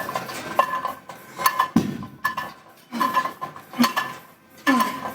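Iron weight plates on a loaded barbell clinking with each rep of bent-over rows: a series of sharp metallic clinks that ring briefly, about one a second.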